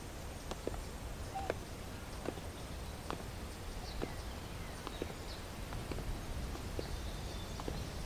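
Slow footsteps of two people walking on a brick path, a soft step every half second to a second, over a low steady outdoor rumble.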